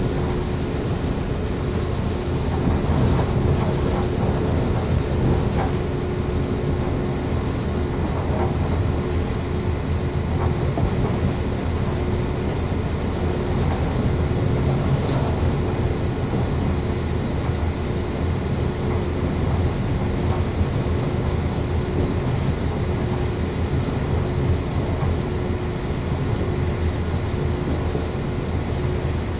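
Passenger train running steadily at speed, heard from inside the carriage: a continuous rumble of wheels on the track, with a faint steady hum running through it.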